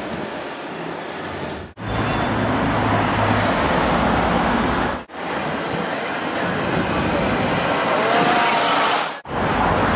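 City street traffic noise, with vehicles passing close by and a brief low engine hum about two seconds in. The sound breaks off sharply three times where clips are cut together.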